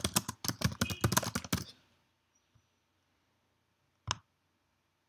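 Typing on a computer keyboard: a quick run of keystrokes for the first second and a half or so, then a single mouse click about four seconds in.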